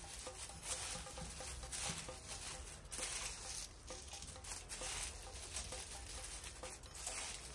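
Dry-roasted neem, curry and lime leaves with spices being stirred in a pan without oil, giving a crisp, irregular rustling crackle, the crunchy 'karakuru' sound of leaves roasted completely dry.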